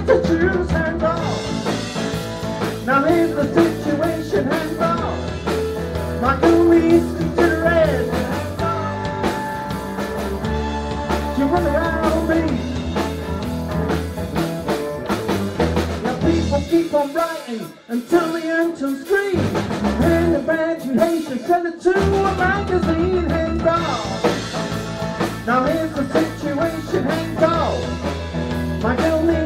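Live blues band playing an instrumental passage: electric guitar over drum kit and keyboards. The bottom end drops out briefly twice around the middle.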